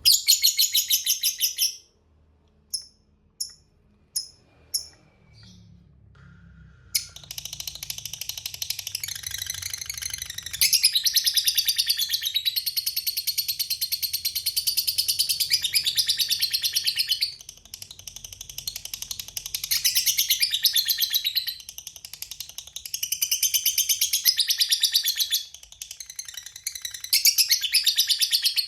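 Lovebird in full song giving the long 'ngekek' chatter: very rapid, high-pitched trilling in long runs of several seconds each, broken by brief pauses. It starts with a short loud burst and a few single chirps before the long runs begin about seven seconds in.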